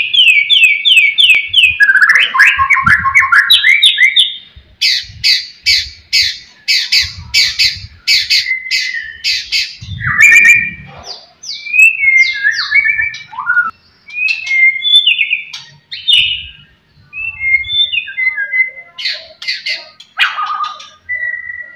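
White-rumped shama (murai batu) singing a loud, varied song. It opens with rapid trills and fast runs of repeated sharp notes, then moves to separate whistled phrases with short pauses between them.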